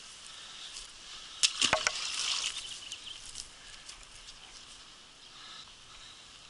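A bass is released back into the pond: a short burst of splashing and knocks about a second and a half in, then only faint outdoor ambience.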